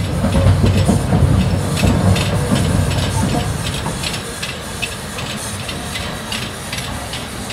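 Train passing: a heavy rumble that dies away over the first few seconds, under a regular rhythmic clatter that keeps going.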